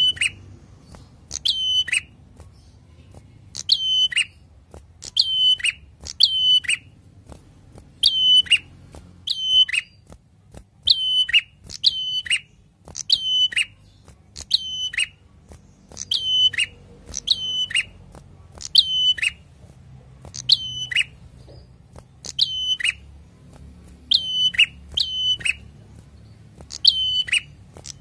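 Caged ashy tailorbird singing: a loud, sharp note that falls away in a quick downward sweep, repeated in ones and twos about once a second.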